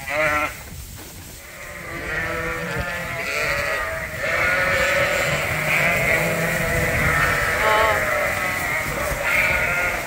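A flock of Dorset sheep and lambs bleating. One loud bleat comes right at the start, then many overlapping bleats build from about two seconds in and keep going.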